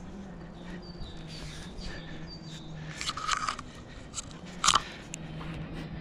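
A climber's hands and shoes crunching and scraping on tree bark and twigs, with a cluster of crunches about three seconds in and the loudest one near the five-second mark. A low steady hum and a few short high chirps in the first half sound underneath.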